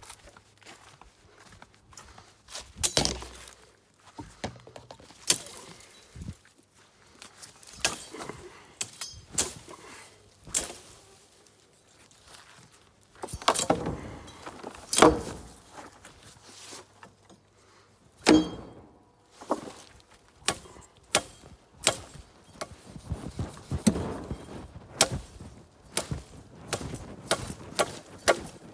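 Sneezeweed being cut down with a hand tool: a string of sharp, irregularly spaced chops and thunks, with denser bursts of cutting now and then.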